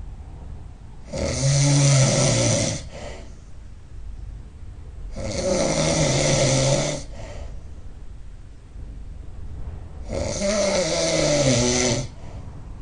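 A person snoring loudly: three long snores roughly four to five seconds apart, each about two seconds long with a low pitched drone that dips in pitch, with much quieter stretches between them.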